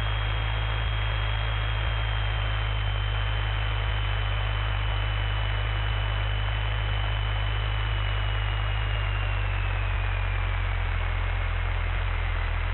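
Cessna 172's piston engine running steadily at low power, heard from inside the cabin as a low drone under a constant hiss. A faint high whine drops in pitch about ten seconds in.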